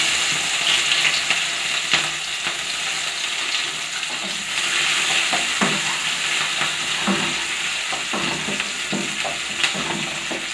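Chopped onion sizzling in hot mustard oil in a metal kadai, loudest at first and easing off slowly, with a wooden spatula scraping and knocking against the pan as it is stirred.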